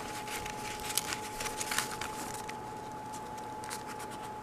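Paper rustling with light scattered ticks as a paper-doily envelope is handled and the pages of a handmade paper journal are turned by hand.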